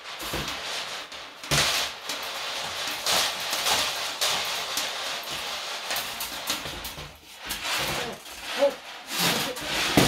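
Toilet auger's metal cable being spun clockwise in a toilet drain, making a continuous scratchy scraping and rattling against the porcelain, louder near the end. The cable is not advancing down the drain.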